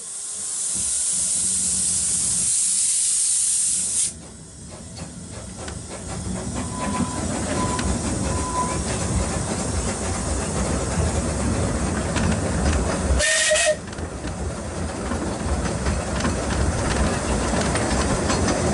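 Narrow-gauge steam locomotive Otter: a loud hiss of steam that cuts off sharply about four seconds in, then the train gets under way with a growing rumble and clatter of wheels on the track. One short whistle toot sounds about two-thirds of the way through.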